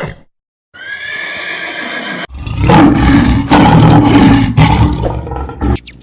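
Recorded animal calls: a high, whinnying call, then a louder, rough roar lasting about three and a half seconds.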